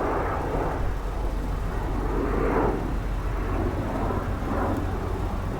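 Steady low engine rumble, swelling briefly about halfway through.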